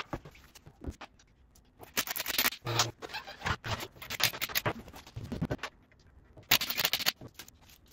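Scattered scrapes, rustles and clicks in short irregular bursts: hands and tools working at a car wheel, with shuffling on a concrete shop floor.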